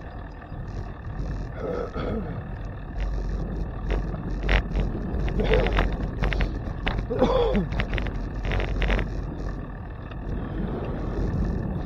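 Wind buffeting a bicycle's handlebar camera microphone as it rides, a low rumble with scattered rattles and clicks. A few short vocal sounds that fall in pitch come through about two, five and seven seconds in.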